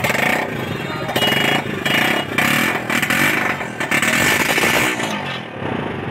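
A motorcycle engine running close by, its revs rising and falling in several surges and easing off near the end.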